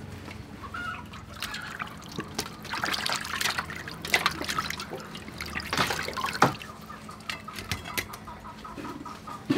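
Water sloshing and splashing in an aluminium basin as a whole plucked chicken is rubbed and washed by hand, in irregular bursts, with one sharp knock about six seconds in.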